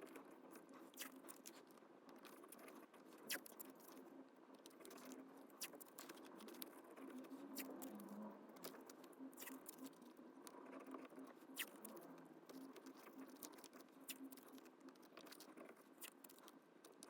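Faint crinkling and scattered light clicks of painter's tape being handled and pressed down around a car's gear shifter.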